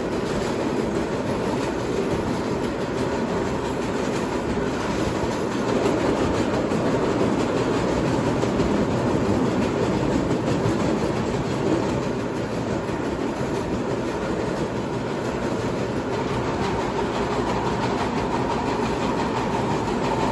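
Vintage R1/9 subway car running at speed through a tunnel, heard from inside the car: a steady wheel-on-rail and running noise, a little louder in the middle as it passes through a station.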